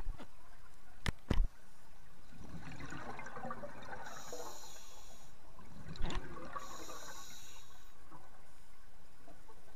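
Scuba diver breathing through a regulator underwater: two long stretches of bubbling and hissing breath, with a few sharp clicks near the start and another about six seconds in.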